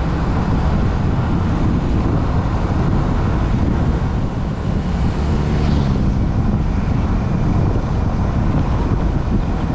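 Motorcycle riding along a road: engine running under heavy wind rumble on the microphone, with the engine note shifting briefly about halfway through.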